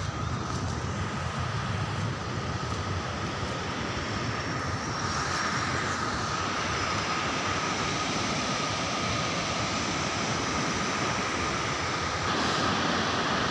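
Steady rushing of a fast white-water mountain river, growing a little louder about five seconds in and again near the end, with a thin steady tone running through it.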